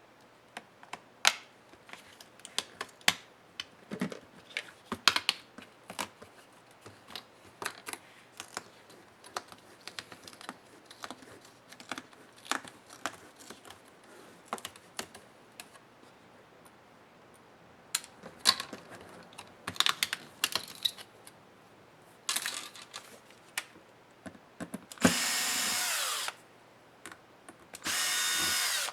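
Light clicks and taps of small laptop parts and tools being handled, then an electric screwdriver running in two short bursts near the end, each about a second long.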